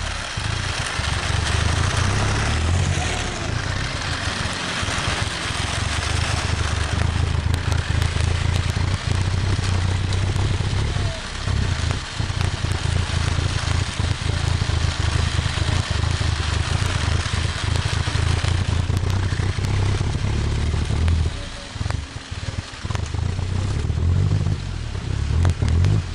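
Steady vehicle running noise: a wavering low rumble under an even hiss, with wind buffeting the microphone. The sound dips briefly twice.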